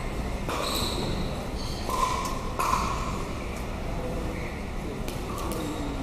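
Pickleball paddles striking a plastic ball and the ball bouncing on a hardwood gym floor: a series of sharp knocks, some with a brief ringing ping, echoing in a large gym.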